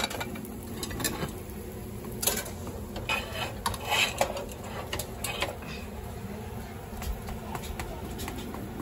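Pancakes frying in butter on an electric griddle: a steady low sizzle with scattered crackles and ticks.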